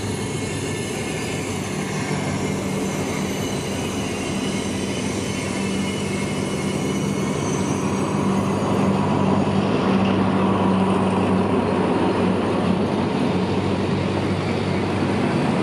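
Idling diesel engine of a CRRC CDA5B1 (QSY) diesel-electric locomotive, an MTU 16V4000 V16, a steady low hum over a broad rumble. It grows somewhat louder about ten seconds in.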